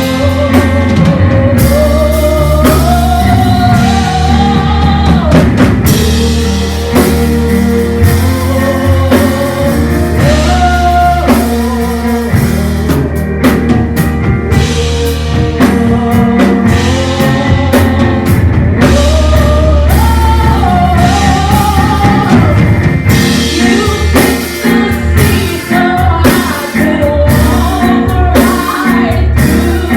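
Live church worship music: a singer's voice over a band with drum kit, bass and keyboard or guitar, playing steadily throughout.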